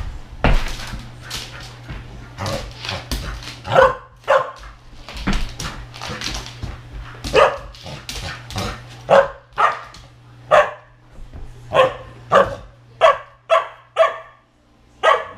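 Samoyed puppy barking over and over in excited play, a long run of short sharp barks that come closer together near the end.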